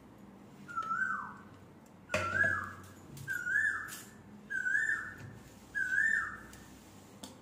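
A bird calls again and again, about once a second: each call is a short whistled note that holds and then slides down in pitch. A light knock is heard a little after two seconds.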